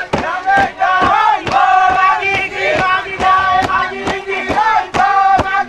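A group of men chanting and singing together in a traditional ceremonial chant, with shouted calls, over sharp rhythmic beats about twice a second.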